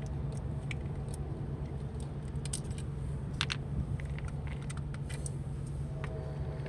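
Light clicks and small rattles of distributor parts being handled while the rotor and cap are taken off, over a steady low mechanical hum.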